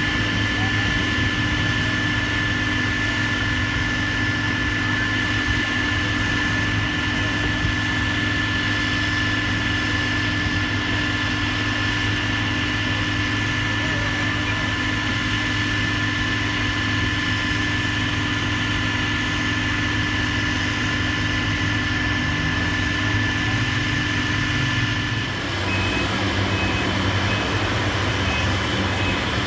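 Heavy demolition machinery running steadily with a constant engine drone. Near the end the sound shifts and a reversing alarm starts beeping at an even pace.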